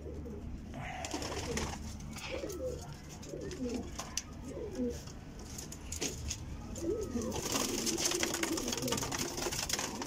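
Domestic pigeons cooing in a loft: short, low, rising-and-falling coos from several birds that overlap, heaviest in the middle and again near the end, with scattered light clicks and rustles.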